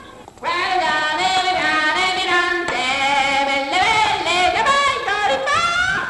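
Singing voices holding and gliding between notes with a wavering pitch, starting about half a second in.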